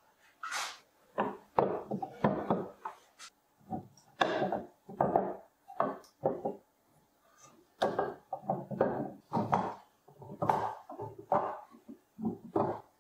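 Wooden strips being set down, shuffled and knocked against each other on a workbench: a string of irregular wooden clacks and scrapes.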